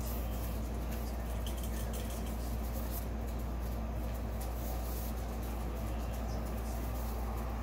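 A steady low hum, with faint soft rustles as paper drawing sheets are lifted and turned over.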